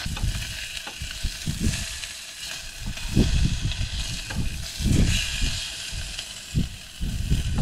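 Marinated salmon fillets frying in hot oil in a small pot on a butane gas cooker: a steady sizzle, with irregular low rumbles underneath.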